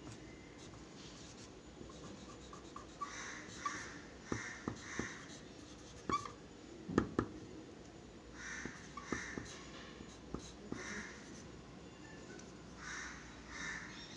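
Pencil scratching on paper in groups of short quick strokes as a signature and date are written, with a few light taps in the middle.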